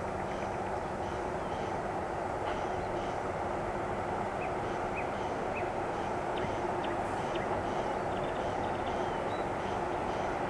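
VL10U electric locomotive hauling a freight train on its approach: a steady hum and rumble, growing slightly louder as it nears.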